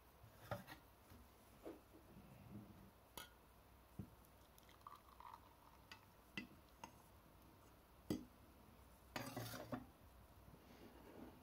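Faint clinks and knocks of a stainless steel jug and a ceramic mug being handled, with espresso poured from the jug into the mug. Scattered sharp taps throughout and a brief louder rustle of noise near the end.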